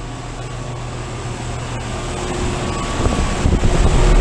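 Rheem central air-conditioner condensing unit running: a steady low hum from its compressor and fan that grows louder, with gusts of wind buffeting the microphone from about three seconds in.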